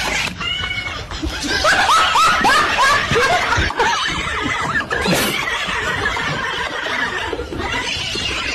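Laughter: a run of quick giggling bursts, each rising and falling in pitch, loudest in the first half.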